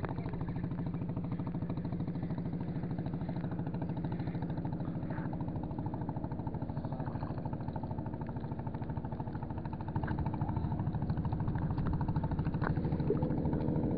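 An engine running steadily at an even pitch with a fine rapid pulse, growing a little louder about ten seconds in.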